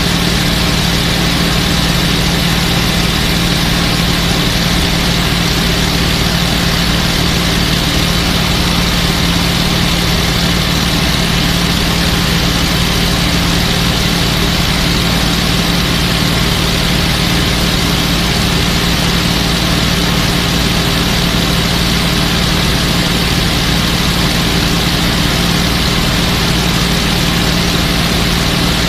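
P-51 Mustang's V-12 piston engine running steadily at cruise power, heard on board with the rush of airflow over the airframe. The drone holds an even pitch and level with no change in power.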